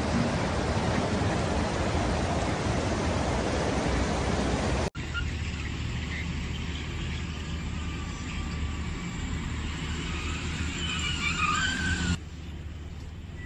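A steady rushing noise, then, after an abrupt cut about five seconds in, car and minibus engines running in slow traffic with a low steady hum. Near the end the sound drops quieter, with a thin steady high tone.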